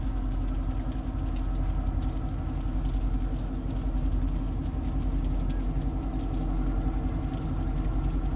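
Steady low engine rumble with a constant hum, of a vessel's engine running; faint small ticks scattered through it.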